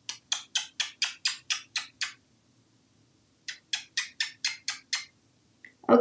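Two runs of quick, sharp clicks, about four or five a second: nine in the first two seconds, then seven more after a pause of about a second and a half.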